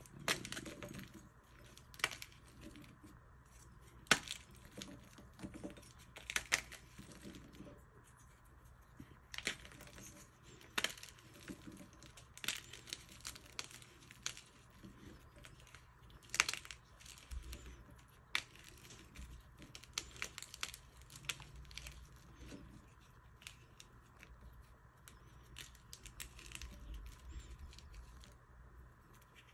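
Hands crushing and crumbling purple dyed chalk blocks: a steady crunchy, gritty crumbling broken by sharp cracks at irregular moments as the chunks snap apart.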